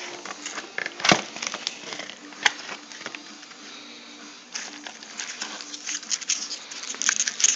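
A taped cardboard box being ripped open by hand. There is a sharp snap about a second in and another a little over a second later, then a stretch of dense crackling and tearing of tape and cardboard near the end.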